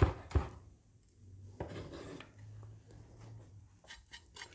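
Knife chopping a fresh bird's eye chilli on a wooden chopping board, about four strokes a second, stopping about half a second in. Then faint light clinks and handling noises over a faint low hum.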